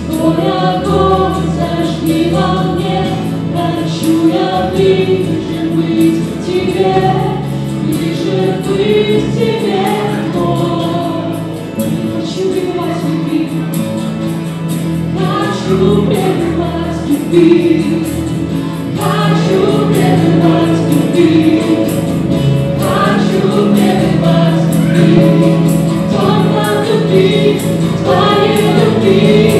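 A live worship band: a group of women and men singing a Christian worship song together into microphones, backed by guitars and keyboard.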